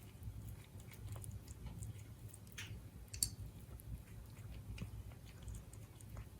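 A Siberian cat chewing its food, with small irregular clicks and a sharper click about three seconds in.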